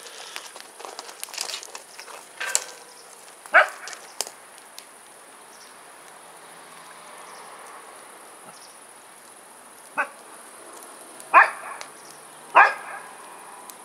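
A dog barking five times, single short barks with long gaps between them. Faint crackling from the wood fire burning in the open steel cone kiln lies between the barks.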